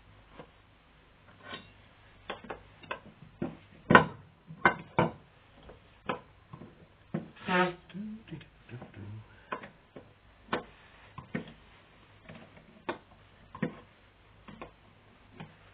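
Open-ended spanner clicking and clinking on nuts of a Triumph Stag carburettor as they are worked loose, in irregular sharp metal taps, the loudest about four seconds in.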